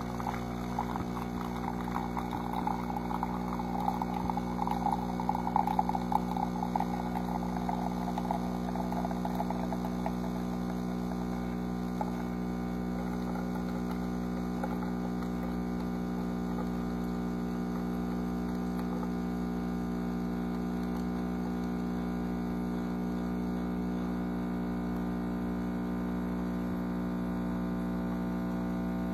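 Ninja CFN601 espresso machine's pump humming steadily while it brews a lungo from a capsule. For the first ten seconds or so, coffee sputters and splashes into the glass mug, loudest around five seconds in; after that only the hum remains.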